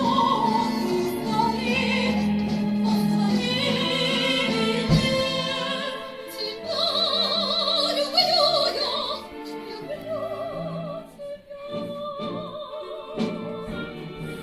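Music: an operatic-style singing voice holding long notes with strong vibrato over instrumental accompaniment.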